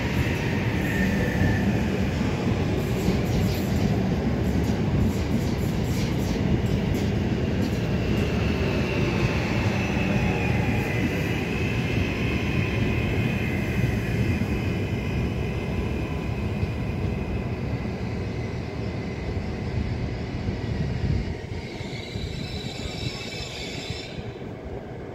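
ETR 485 Pendolino electric train passing through without stopping: a steady rumble of wheels on rail with a high whine over it, growing quieter over the last few seconds.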